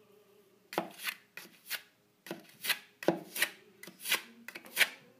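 Metal filling knife scraping and spreading filler into a plaster gap in short repeated strokes, about two to three a second, starting under a second in.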